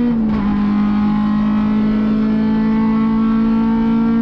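Acura RSX-S race car's four-cylinder engine heard from inside the cockpit, running steadily at high revs; its pitch dips slightly about a quarter second in and then holds level.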